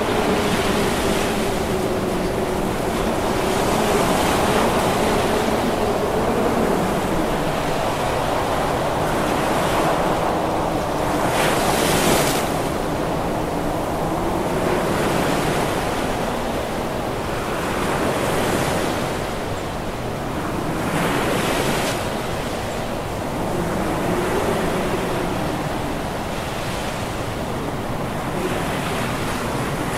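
Waves breaking and washing on a pebble shore, with wind. The rush swells and ebbs as each wave comes in, the loudest surge about twelve seconds in.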